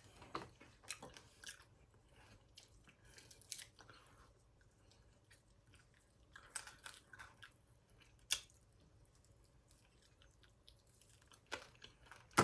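Close-miked chewing and biting of fried fish, with faint, intermittent crunches and mouth clicks coming in small clusters.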